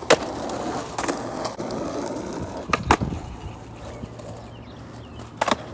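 Skateboard wheels rolling on asphalt, with several sharp clacks of the board hitting the ground. The rolling noise eases off after about three seconds.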